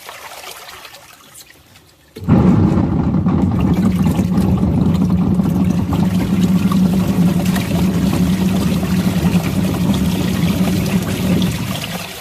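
Toy washing machine running with water inside: a steady low motor hum under sloshing water. It starts suddenly about two seconds in and fades near the end.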